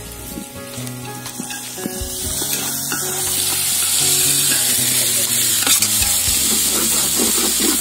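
Onions, green chillies and curry leaves frying in oil in an aluminium pot, sizzling loudly from about three seconds in while being stirred with a steel ladle. Soft background music with steady held notes plays underneath.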